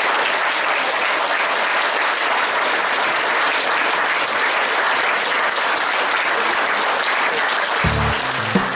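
A large audience clapping: dense, steady applause. Near the end a few low instrumental notes start up under it.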